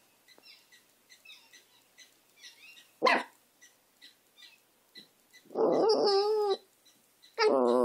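A small dog barks once, then howls twice, each howl lasting about a second with a wavering pitch.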